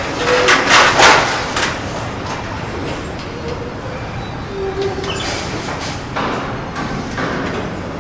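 Metal factory ambience: a steady, loud din of running machinery, broken by several louder hissing, clattering bursts, the biggest about a second in and others in the second half. A few short faint whines sound over the din.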